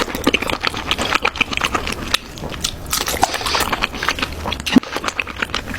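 Close-up chewing of crispy food, a dense, irregular run of crunches and crackles.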